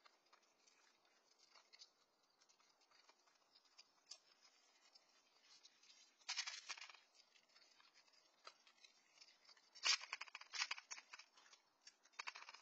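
Raccoons eating dry cat kibble from a metal pan: scattered crunching and clicking, with denser spells of crunching about six seconds in and again about ten seconds in.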